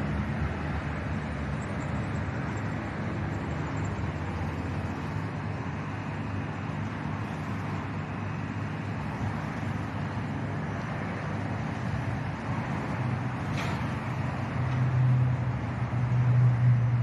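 Steady rumble of distant engines and traffic. A low engine hum grows louder near the end, and there is one brief click about two-thirds of the way through.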